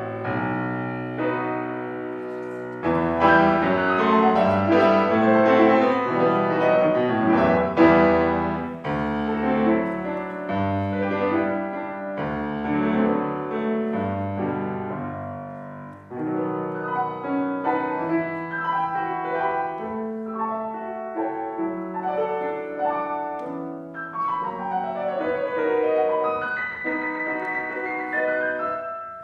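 Piano playing a classical-style piece in chords and running notes. It grows fuller about three seconds in, thins out briefly around halfway, and climbs in quick rising runs near the end.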